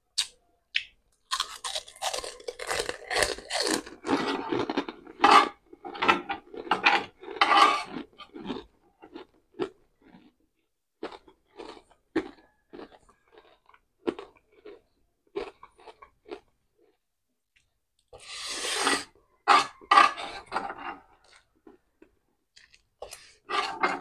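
Crunching and chewing of crispy scrambled egg in a person's mouth, picked up by a lapel mic: a dense run of loud crunches for the first several seconds, then slower, softer chewing, and another loud spell of crunching about three quarters of the way through.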